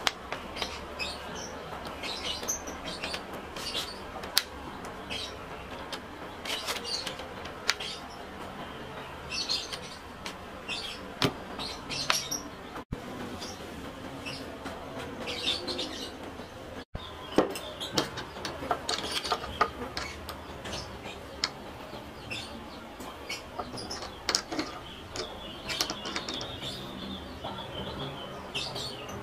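Small birds chirping and tweeting in short, irregular calls throughout, with a few sharp clicks between them. No router motor is running.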